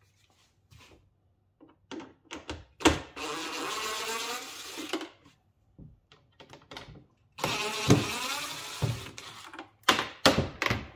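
DeWalt XR cordless impact driver run twice, for about two seconds each, about three and seven seconds in, backing out the screws that hold the case lid's retention cables. Short clicks and knocks of the tool and parts being handled come in between.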